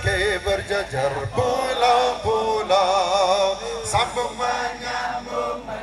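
Men singing a sholawat, an Islamic devotional song, in a wavering melody, with occasional drum beats.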